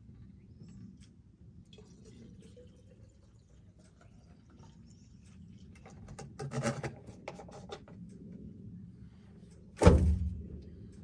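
Handling noises as a chainsaw is refuelled: faint scraping and a few clicks and knocks, then one loud, heavy thunk near the end.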